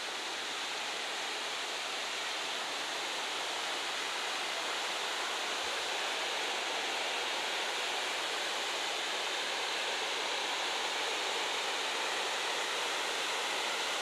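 Waterfall: a steady rush of water pouring over a rock ledge into a deep gorge.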